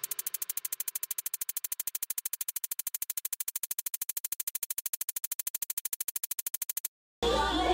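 Music with a quiet, rapid, even electronic buzzing pulse, about ten beats a second, over a steady synth tone. It cuts off abruptly near the end, and after a brief gap louder music with singing begins.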